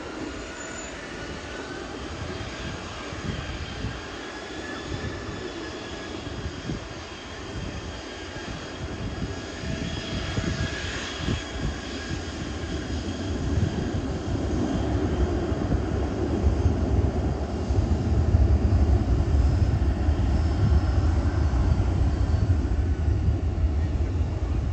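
Jet airliner flying low overhead. A high engine whine is heard first, then a deep rumble builds and is loudest over the last several seconds.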